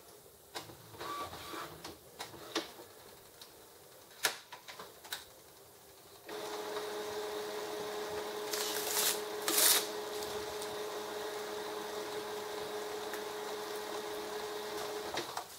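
Epson XP-605 inkjet printer's mechanism starting up about six seconds in and running with a steady whir and hum, with two sharp clacks a few seconds after it starts. The owner takes it for the printer running a priming cycle while it cancels a print job. Before it starts there are only a few faint clicks.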